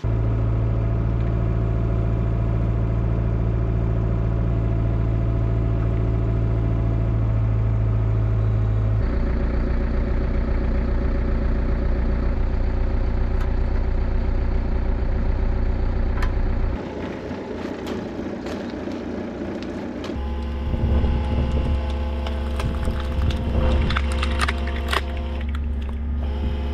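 Excavator engine running steadily, its sound changing abruptly several times between cuts. In the last several seconds wood cracks and splinters repeatedly as a hydraulic screw cone splitter on the excavator arm bores into logs.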